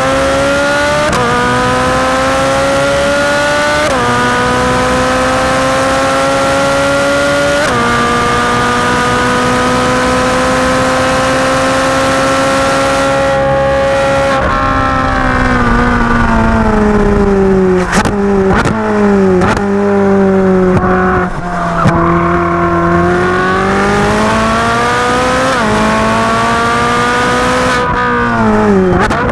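Ferrari 458 Speciale's naturally aspirated 4.5-litre V8 at full throttle on track. It pulls through three quick upshifts in the first eight seconds, each rise in pitch cut by a sharp drop, then holds one long climbing pull. Past halfway it falls through a run of rapid downshifts with several sharp cracks, then accelerates again, with another upshift and a downshift near the end.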